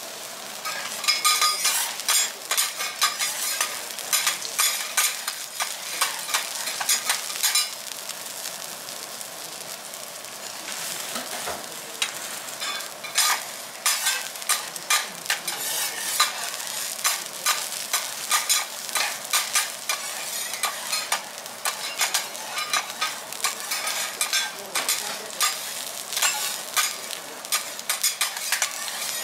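Wagyu beef tenderloin sizzling on a hot teppanyaki griddle: a steady hiss with dense sharp crackles and spits of fat. The crackling eases off for a few seconds about a third of the way through, then picks up again.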